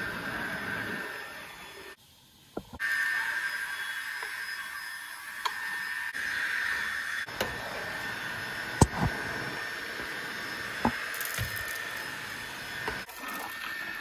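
Tefal X-Force Flex cordless stick vacuum running with a steady high whine as it is pushed over a rug and then a wooden floor, with a few sharp clicks. The sound drops out briefly about two seconds in, then the whine picks up again.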